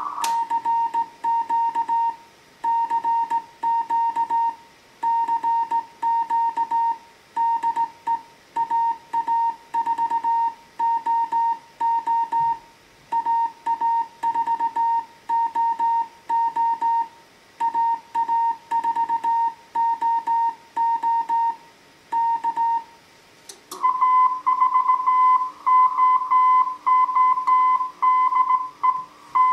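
Slow Morse code (CW) from a Heathkit HW-101 transceiver: a single tone keyed in dots and dashes. About 24 s in there is a click, and a louder, slightly higher-pitched keyed tone takes over.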